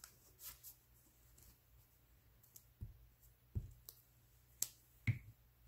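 Hands handling paper scraps on a craft cutting mat: a brief paper rustle about half a second in, then scattered light clicks and a few soft taps on the table.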